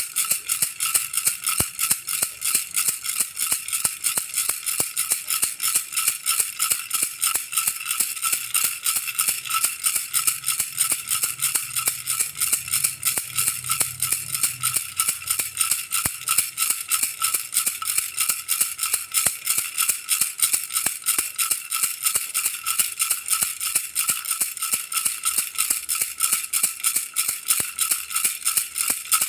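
Baby rattle shaken in a steady, rapid, even rhythm: a bright, high rattling that keeps going without a break.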